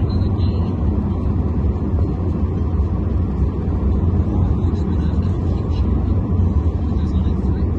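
Steady low rumble of road and engine noise inside a moving vehicle's cabin, an even drone that sounds much like an airliner cabin in flight.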